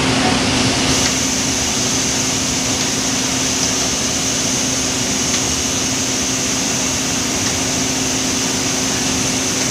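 Palm oil mill threshing-station machinery running steadily, with the scraper-chain conveyor that feeds thresher no. 2 in motion: a constant loud mechanical din with a steady low hum and a high hiss.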